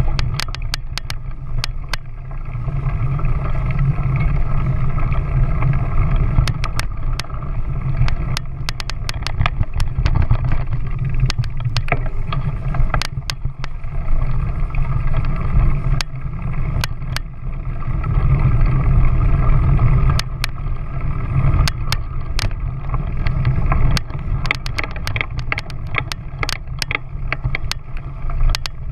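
A ride along a rough dirt track heard from a vehicle-mounted action camera: a steady low rumble with frequent sharp clicks and rattles as the mount jolts over bumps.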